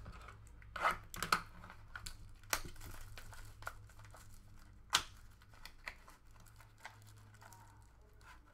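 Clear plastic wrapper on a trading-card pack crinkling and tearing as it is peeled open by hand. A few sharp crackles come in the first five seconds, the loudest about five seconds in, then softer rustling.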